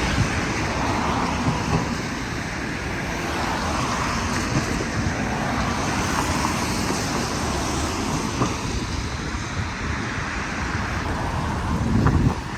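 Steady city traffic noise with wind buffeting the microphone, swelling louder briefly near the end.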